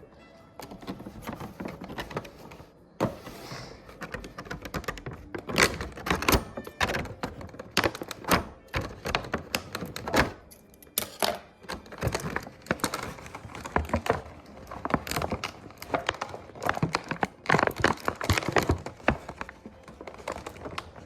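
Plastic toy packaging and a small plastic figure being handled and pulled at, giving a dense, irregular run of clicks, taps and knocks while the tied-in Pomeranian figure is worked free of the box.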